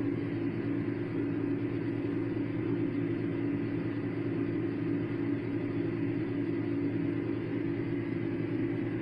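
Steady low mechanical hum.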